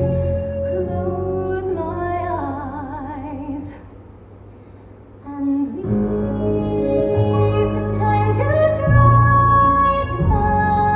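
Musical theatre number: a woman singing sustained, wavering notes over the pit orchestra, which drops to a soft pause about four seconds in and then swells back with full sustained chords.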